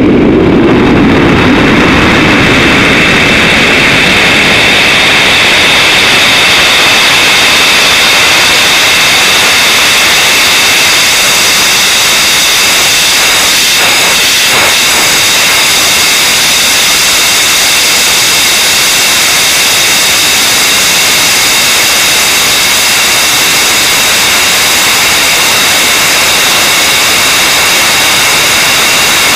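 Rocket engine running during powered ascent, heard through a camera mounted on the rocket: a loud, steady rushing noise with a few high, steady whistling tones over it.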